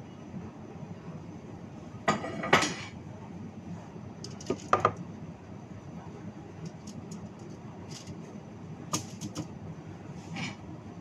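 Kitchen utensils and dishes clattering: a burst of clanks about two seconds in, a couple more near five seconds, then scattered light clicks.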